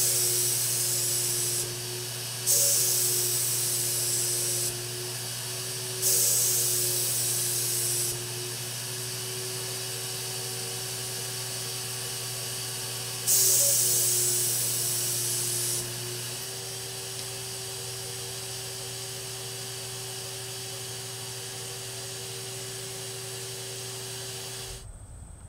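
HVLP paint sprayer in use: the turbine runs with a steady whine while the hose-fed spray gun hisses in four bursts of about two seconds each as paint is sprayed onto cabinet face frames. The whine stops near the end.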